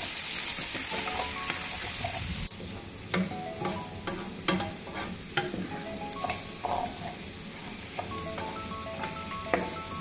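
Raw rice sizzling in hot oil in a pot, sautéed until golden, while a wooden spoon stirs in chopped tomato and scrapes the bottom. The sizzle is loud at first and drops sharply about two and a half seconds in, leaving quieter scrapes and knocks from the spoon.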